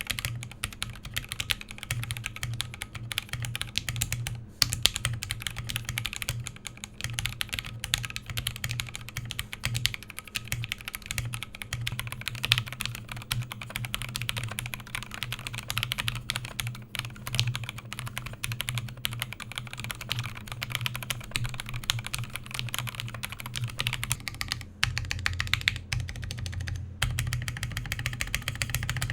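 Typing on a Scarlet TKL CNC-aluminum custom mechanical keyboard fitted with Alpaca V2 linear switches, in its stock foamless configuration: a continuous stream of keystrokes that sounds high-pitched and clacky.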